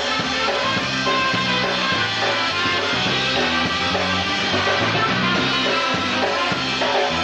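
A live band playing an upbeat song with a steady beat, bass and guitar.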